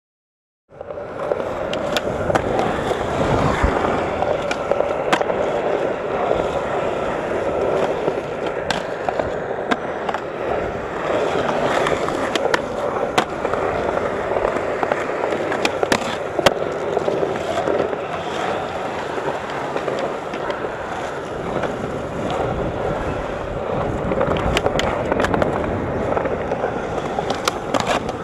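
Skateboard wheels rolling on smooth concrete with a steady rumble, broken by many sharp clacks of the board popping, landing and hitting the ground. It starts suddenly about a second in.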